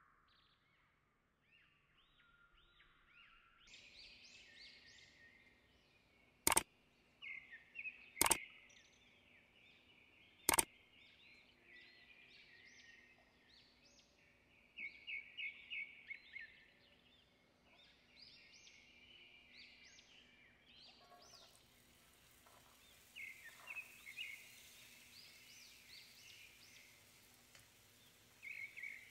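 Faint chirping and trilling of small birds. Three sharp clicks come in the first half, and a faint steady hiss joins about two-thirds of the way through.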